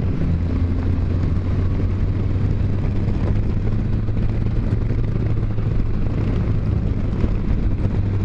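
Can-Am Spyder F3's three-cylinder engine pulling steadily up a climb, a constant low drone mixed with wind rushing over a helmet microphone.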